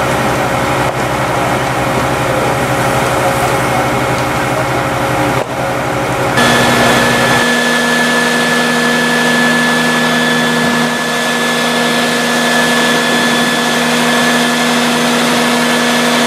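Fire engine running steadily, with a constant drone and whine, its engine driving the pump that feeds the hoses. About six seconds in the sound changes abruptly to a different steady drone with a higher whine.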